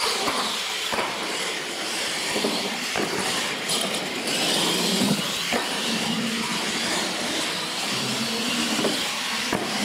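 Two R/C monster trucks launching together and racing over a concrete floor: the sound starts suddenly at the launch into a steady high whir of motors, gears and tyres, with scattered knocks as the trucks bounce.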